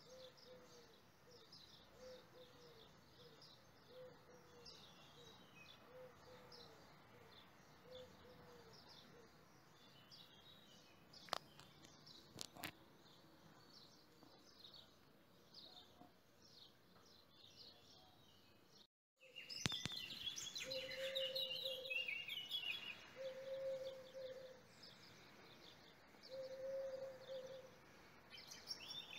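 Faint birdsong: many small birds chirping high, over a lower call repeated about once a second. It cuts out for a moment about two-thirds of the way through and comes back louder, with the low call spaced further apart.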